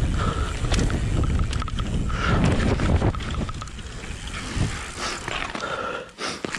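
Mountain bike descending a dirt trail and rolling onto a rock slab: heavy wind rumble on the camera microphone with tyre noise and the clatter of the bike, easing off after about three seconds into quieter clicks and knocks.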